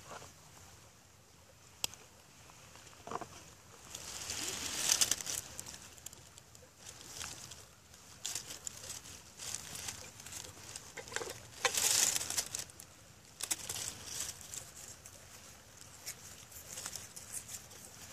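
Rustling and handling noises: hands moving through dry leaves and a bag, picking up a small steel pencil sharpener and a stick of fatwood, with two longer rustles and many small clicks.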